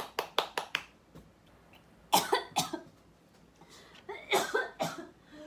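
Hand claps, about five a second, stopping under a second in; then a single cough about two seconds in, followed by a few short vocal sounds near the end.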